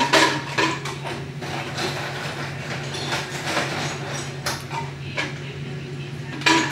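Refrigerator door dispenser running with a steady low hum into a handheld water bottle, cutting off near the end, with a few sharp knocks and clinks against the bottle.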